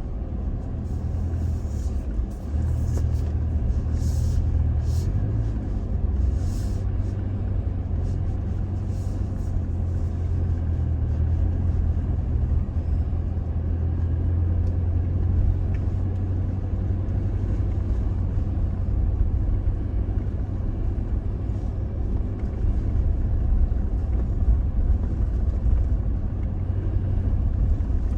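Toyota Tacoma pickup driving on a dirt back road: a steady low rumble of engine and tyres, with a few short hissy rustles in the first ten seconds or so.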